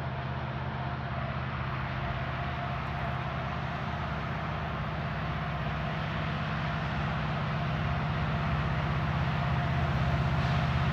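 Diesel locomotives approaching, a Norfolk Southern SD70ACe leading an ES40DC, their engines making a steady low drone that grows gradually louder as they draw near.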